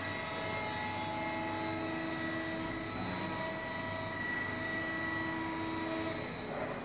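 ACCURL 110-ton CNC hydraulic press brake running very, very quiet: a steady hum from its hydraulic pump drive, with whining tones that start and stop a few times as the machine works.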